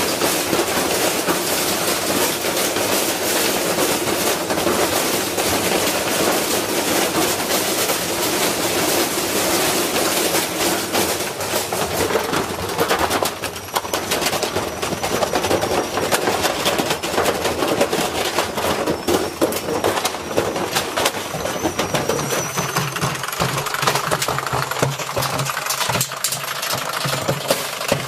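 Washing machine running with a brick inside its drum: dense, continuous banging and rattling as the badly unbalanced load hammers the drum and cabinet. The banging changes character about halfway through and again late on.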